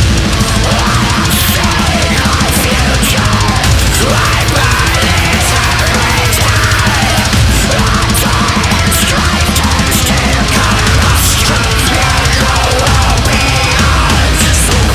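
Death metal recording with heavily distorted guitars over rapid, dense drumming, loud and unbroken.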